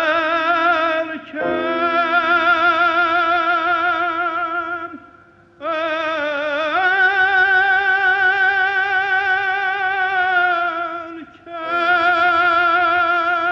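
Classical music: a singer holds long notes in an operatic style with a wide vibrato, in three phrases with short breaks about five and eleven seconds in.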